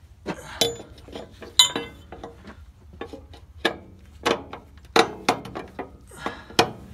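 Irregular metallic clinks and knocks, about a dozen, some ringing briefly, as the bearing flange of a Case 1660 combine's straw chopper is worked by hand over the bearing and its mounting bolts while it is being seated.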